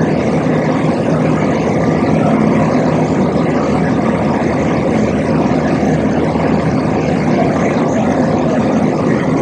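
Forklift engine idling, a loud, steady drone.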